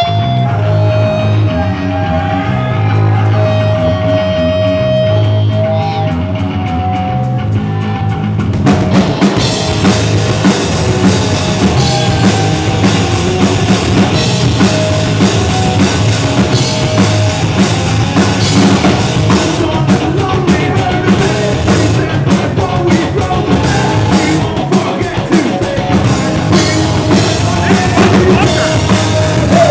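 Live rock band playing a song on amplified electric guitars and drum kit: a quieter opening of sustained guitar notes over a low line, then the drums and full band come in loud about eight or nine seconds in.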